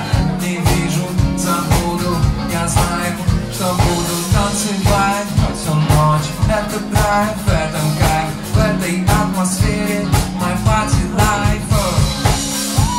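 Live band playing a song: a male voice sings over electric keyboard, bass and a drum kit keeping a steady beat.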